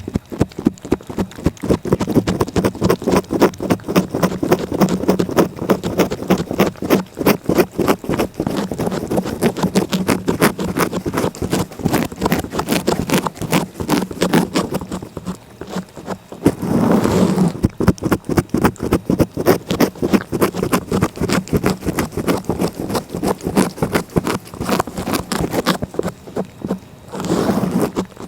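A cat licking close up against the microphone: rapid, rhythmic rasping licks, several a second, with a longer rubbing scrape about 17 s in and again near the end.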